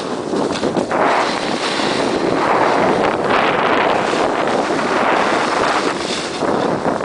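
A snowboard sliding fast over packed snow, its rushing, scraping hiss swelling and easing with the turns, mixed with wind buffeting the microphone.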